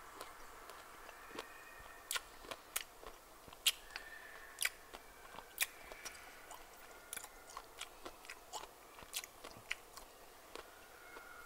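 A person chewing a mouthful of lemon slice: a string of sharp, wet mouth clicks and smacks at irregular intervals, about one or two a second.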